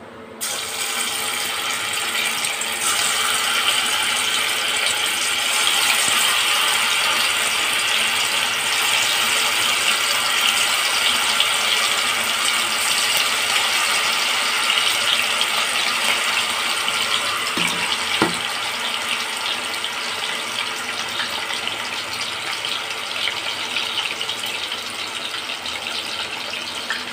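Marinated beef pieces deep-frying in hot oil in a kadai: dense sizzling and crackling that starts suddenly as the pieces go in, then eases slightly toward the end.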